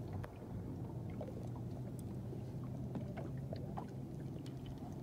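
Fishing boat on open water: a steady low motor hum, with faint scattered clicks and ticks over it.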